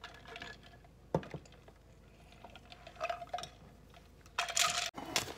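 Scattered light clinks and knocks of a dish and utensils being handled, with one sharp click about a second in and a louder burst of clatter near the end.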